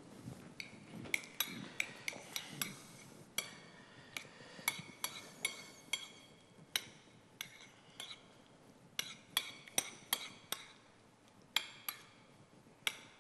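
A spoon clinking against a small dish again and again while mayonnaise and ketchup are stirred together: short, ringing clinks at an uneven pace, about one or two a second.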